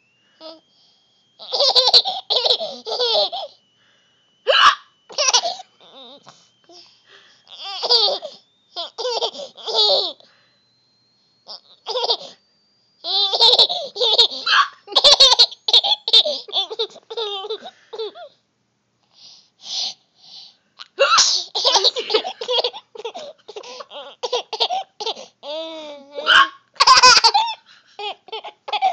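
A young child laughing in repeated fits at a woman's hiccups, which come as sharp, sudden catches between the bouts of laughter.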